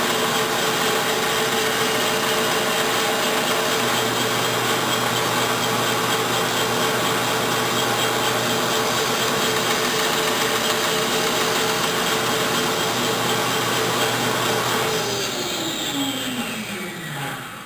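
Benchtop band saw running and cutting through a wooden pad blank, with a steady motor whine. About 15 seconds in it is switched off and winds down, its whine falling in pitch and fading away.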